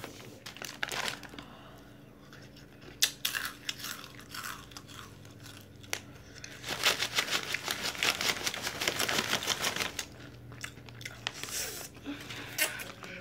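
Foil-lined Takis chip bag being torn open: scattered crackles, then a dense run of crinkling and tearing lasting about three seconds, starting roughly seven seconds in.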